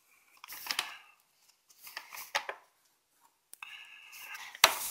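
Small paintbrush scraping wood glue along the slots of laser-cut wooden box panels in short scratchy strokes, with a sharp knock near the end.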